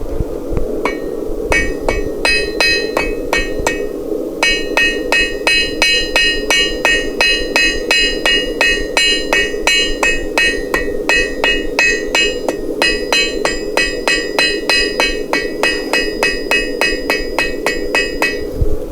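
Blacksmith's hammer striking hot steel on an anvil, about three blows a second, each with a bright metallic ring. The blows come in runs with short pauses, over a steady hum.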